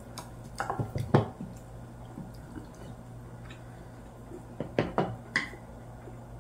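Quiet mealtime sounds: a few light clicks of metal chopsticks against plates and the serving pot, with soft wet chewing, in two short clusters about a second in and about five seconds in, over a low steady hum.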